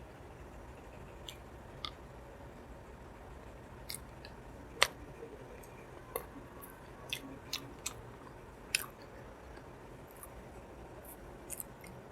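Close-miked mouth sounds of someone eating soft, syrupy gulab jamun: scattered wet clicks and smacks, the sharpest about five seconds in and again near nine seconds.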